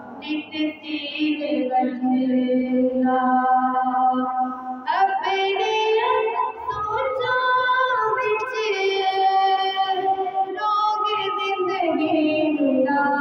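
A woman singing an Urdu naat, a devotional song, into a handheld microphone: long held notes joined by sliding, ornamented turns.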